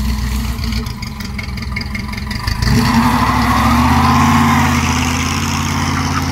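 Engine of a 1972 GMC C15 pickup running as the truck pulls away, getting louder about three seconds in as it accelerates.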